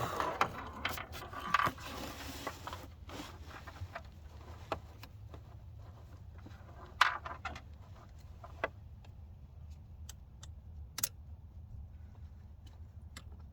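Scattered metal clinks, knocks and scrapes of hand tools and bolts being worked on a car engine during a thermostat swap, with a sharper clank about halfway through and another near the end, over a steady low hum.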